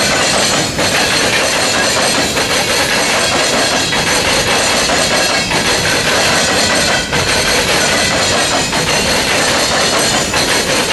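Steel wheels of a coal train's hopper and gondola cars pounding across a railroad diamond crossing: a loud, continuous clatter of metal bangs as wheelset after wheelset hits the crossing.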